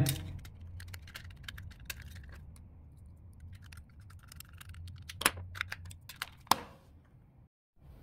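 Small plastic clicks and taps as a Logitech M220 Silent mouse is handled and put back together, with a screwdriver working the screw under the battery cover. Two sharper clicks stand out about five and six and a half seconds in.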